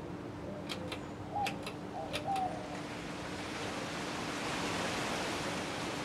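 TAT CFA2PC ceiling fan running with a steady motor hum while its pull-chain switch clicks in three quick pairs over the first two and a half seconds. The rush of air from the blades then swells as the fan speeds up to high.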